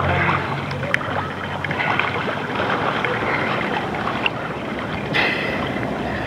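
Pool water sloshing and splashing around a camera held at the waterline, with wind buffeting the microphone. A sudden louder rush of water comes about five seconds in.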